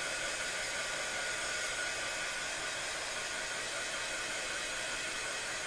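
Handheld hot-air dryer blowing steadily, an even rushing hiss with a faint steady whine, as it dries wet acrylic paint on the edge of a box canvas.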